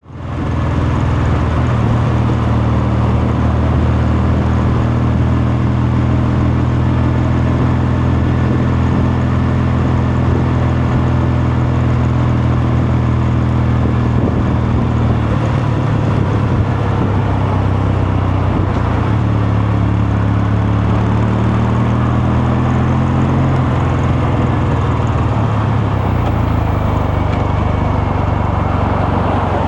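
Kawasaki Meguro K3's air-cooled parallel-twin engine and exhaust running on the move, holding a steady note, dropping in pitch about halfway through and climbing again a few seconds later.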